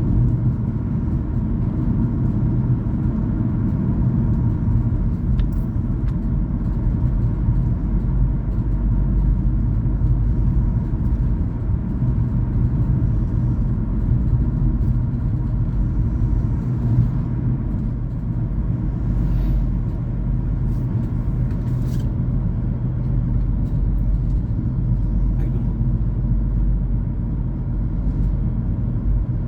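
Steady low rumble of a car's engine and tyres heard from inside the cabin while driving at a constant speed.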